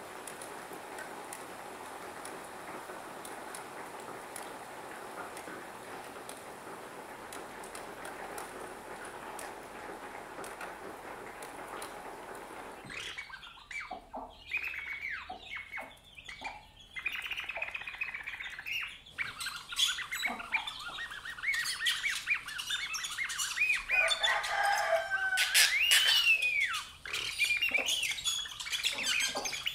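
A steady hiss-like noise, then from about 13 seconds in, a run of bird-like chirps, squeaks and squawks with a whistle that rises and falls, growing louder toward the end.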